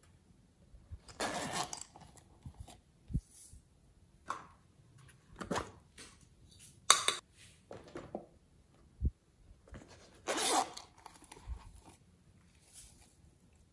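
Handling of small plastic toy cases and slime-play pieces: several short scrapes and rustles, the longest about ten seconds in, with a sharp click and a couple of soft knocks between quiet gaps.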